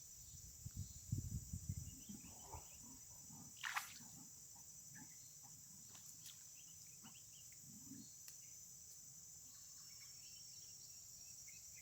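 Faint, steady high-pitched insect drone, like crickets. A few soft low rumbles come in the first two seconds or so, and there is one sharp click a little before the four-second mark.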